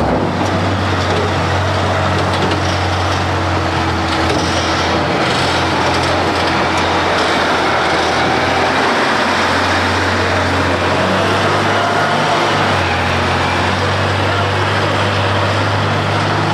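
Heavy diesel engine of a wheeled tractor scraper running as the machine drives past, a steady low drone over a loud rush of noise. The low engine note drops away and comes back a few times.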